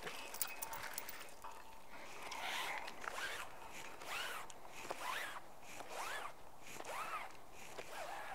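Magnet-fishing rope drawn in strokes over a metal bridge railing. Each stroke is a zipping rub that rises and falls in pitch, about once a second.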